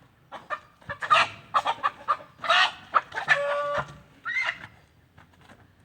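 A chicken clucking and squawking in a rapid, agitated series, with one longer held squawk about three and a half seconds in, then falling quiet.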